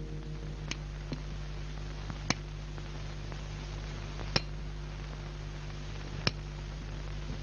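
Sharp, ringing clinks, one about every two seconds, over a steady low hum.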